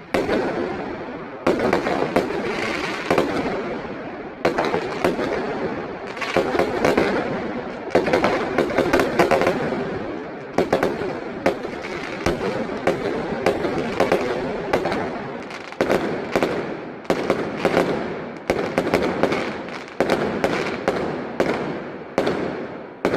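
Fireworks going off without a break: repeated sharp bangs, many in quick clusters, over a continuous crackle, with the bangs coming thicker toward the end.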